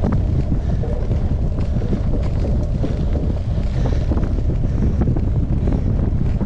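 Wind buffeting the microphone of a camera carried on a moving mountain bike: a steady low rumble with scattered short clicks and rattles.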